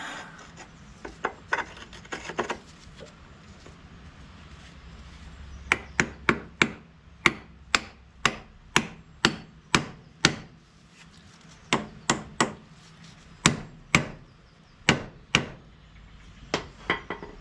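Hammer blows on a steel pivot pin, driving it back into a Kubota 130 backhoe's ram mounting. Sharp, ringing strikes about two a second come in several bursts, after a few lighter taps near the start.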